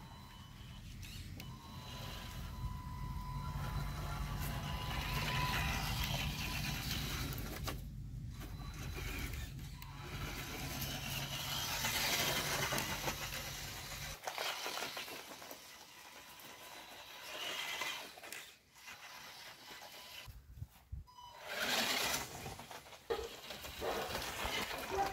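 Homemade scale RC 4x4 off-roader's motor and gear drive whirring as it drives over grass, swelling and fading and stopping briefly several times.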